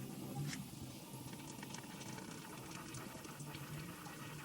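Engine oil draining from the open drain plug of a John Deere Z930M zero-turn mower: a faint, steady pouring trickle.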